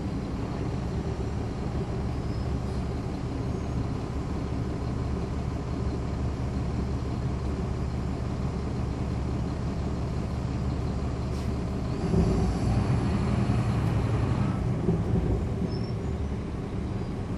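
Transit bus's Caterpillar C13 ACERT diesel engine with its ZF Ecomat automatic transmission, heard from on board, running steadily. About twelve seconds in the sound grows louder for roughly three seconds, then settles back to the earlier level.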